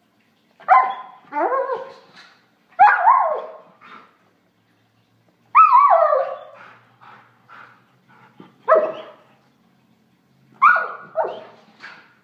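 German Shorthaired Pointer giving about seven high yelping barks, each falling in pitch and some coming in quick pairs, while it pounces at a flashlight spot.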